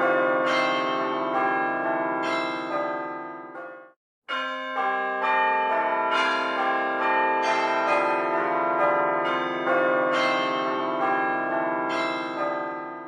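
Several church bells ringing in quick succession at different pitches, the strikes overlapping. The sound cuts out abruptly about four seconds in and resumes a moment later.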